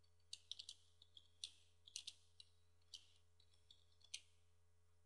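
Faint typing on a computer keyboard: about a dozen short, irregularly spaced key clicks over the first four seconds as a short phrase is typed.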